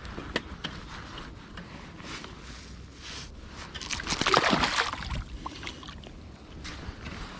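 Water splashing and sloshing, loudest for about a second some four seconds in, with scattered small clicks.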